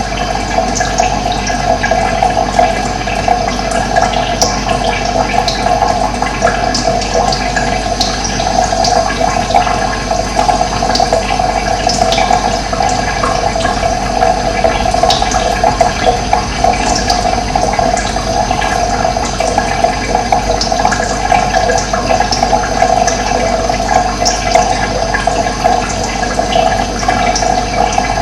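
Running water flowing steadily, an unbroken rush with small splashy flecks.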